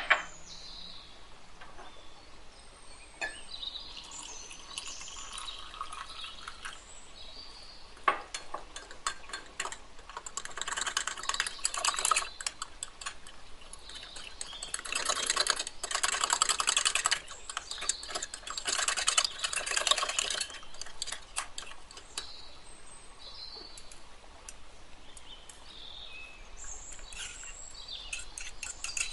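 Metal spoon stirring briskly in a ceramic cup, clinking and scraping against the sides as flour is mixed into milk for a sauce base. It comes in three bouts of rapid scraping, the busiest about midway.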